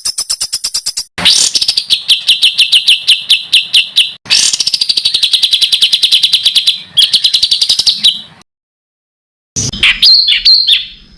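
A songbird's loud, rapid repeated notes, strings of about ten sharp chirps a second at a high, steady pitch, broken by a short pause. About eight seconds in it cuts to dead silence for a second, then a different, more varied song starts.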